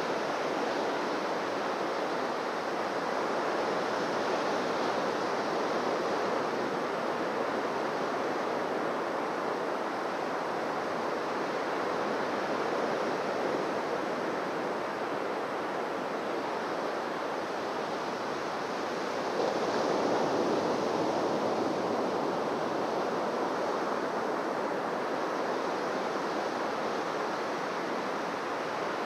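Ocean surf washing onto a beach: a steady rush of waves that swells louder for a few seconds about two-thirds of the way through.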